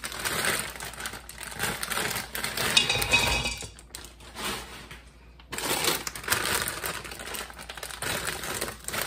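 Frozen cauliflower florets pouring out of plastic bags and clattering into a stainless-steel Instant Pot inner pot. There are two pours, with a short lull about four seconds in while the next bag is picked up.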